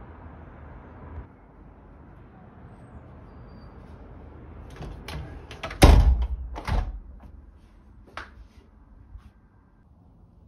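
A window being worked by its lever handle: a run of sharp clicks and knocks, with two heavy knocks of the sash against the frame close together midway. Faint street traffic is heard at the start and drops out about a second in.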